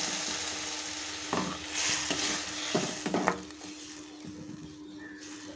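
Vermicelli and water sizzling in a hot pan, the hiss dying down, with a steel ladle stirring and scraping against the pan a few times in the middle.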